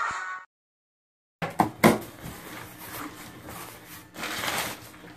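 Theme music cuts off, a second of silence, then hands handling a cardboard box and rustling crumpled brown kraft packing paper inside it, starting with two sharp knocks and swelling to a louder rustle about four seconds in.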